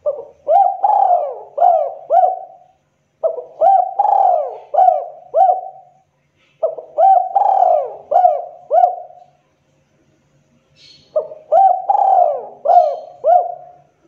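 Spotted dove cooing: four phrases of four or five loud, arching coos each, with short pauses between them and a longer pause before the last phrase. It is the sharp call of a dove in breeding condition.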